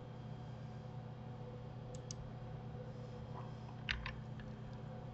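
Faint clicks of a computer mouse and keyboard: a quick pair about two seconds in and a small cluster near four seconds, over a steady low hum.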